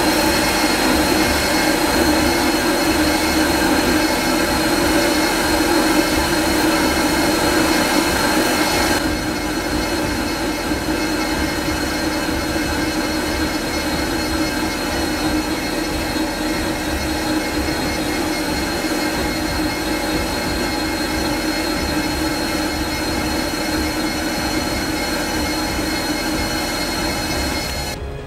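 Wabeco D6000 lathe parting off a steel fixture: the parting tool cuts with a steady shrill noise and a high ringing tone over the running lathe. It eases a little about nine seconds in and stops near the end.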